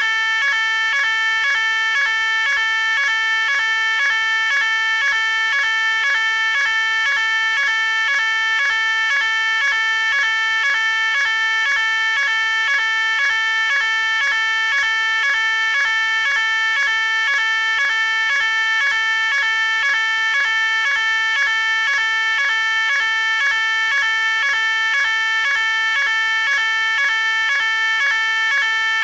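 Electronic fire alarm sounding: a loud, high, multi-tone beeping pulse that repeats quickly and evenly without a break.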